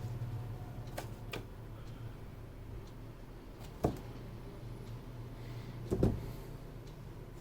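Skyloong SK61 mechanical keyboard giving a few isolated clicks, with two heavier knocks about four and six seconds in, over a steady low hum.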